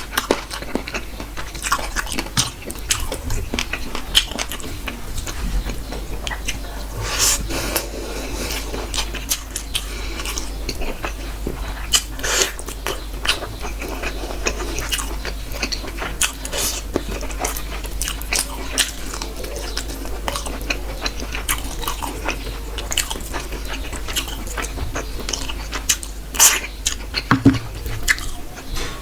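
Close-up mouth sounds of someone eating chicken and rice: chewing and biting with many irregular wet clicks and smacks, now and then a crunch. A steady low hum sits underneath.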